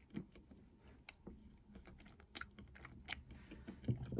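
Faint chewing of a bite of milk chocolate with whole hazelnuts and caramel filling: soft, irregular crunching clicks, with a short louder low sound near the end.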